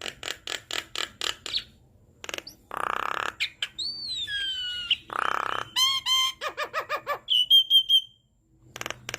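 Javan myna singing a varied song: a quick run of clicking notes, two harsh rasping calls, a long descending whistle, and rapid chattering notes and a short trill, with a brief pause near the end.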